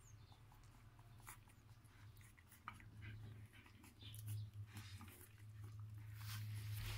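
Faint small noises of 17-day-old kelpie puppies crawling on fleece bedding: scattered soft clicks, rustles and little puppy sounds, over a low steady hum.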